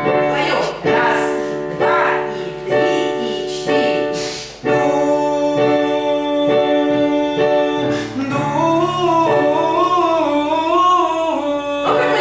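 A voice singing a vocal exercise with piano accompaniment, moving through short notes and then holding notes with vibrato from about two-thirds of the way in.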